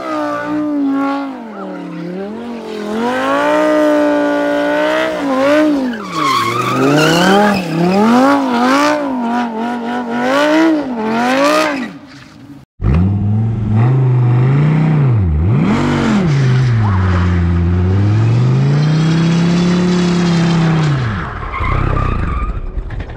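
Straight-piped Audi R8 engine revving up and down repeatedly as the car spins donuts, with tyres screeching under wheelspin. After a sudden cut about 13 seconds in, a deeper engine note rises and falls.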